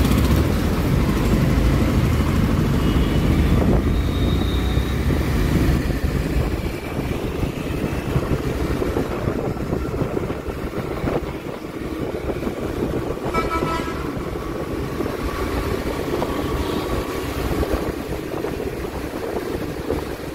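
Motorcycle engine running and road noise while riding in city traffic, heavier for the first six seconds. A vehicle horn sounds once, briefly, past the middle.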